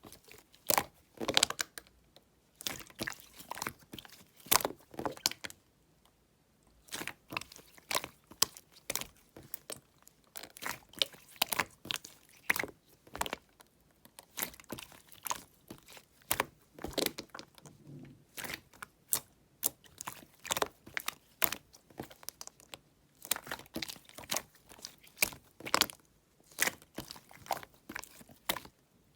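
Slime being squeezed, pressed and poked by hand, making irregular sticky clicks and pops, several a second, with short pauses between handfuls.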